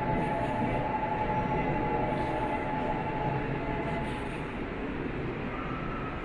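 Subway train running through the station: a steady rumble with a held high whine that fades about four seconds in.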